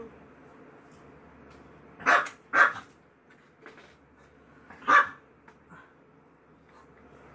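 Pet dog barking three times: two barks about half a second apart, then one more a few seconds later.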